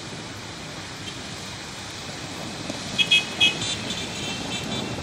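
Steady hiss of heavy rain over street traffic, with car horns honking in a string of short beeps about three seconds in.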